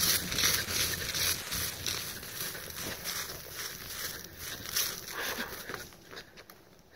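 Irregular rustling and crunching, footsteps and clothing moving, dying down near the end.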